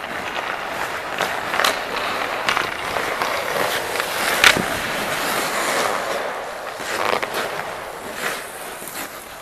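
Ice hockey goalie's skate blades scraping and carving the ice as he pushes side to side across the crease. Several sharp knocks come through the scraping, the loudest about halfway through.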